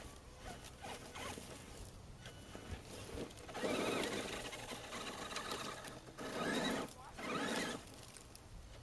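Traxxas Summit RC truck's electric motor and drivetrain whining in three bursts of throttle as it climbs loose sandy ground, the first and loudest about halfway through, the other two close together near the end.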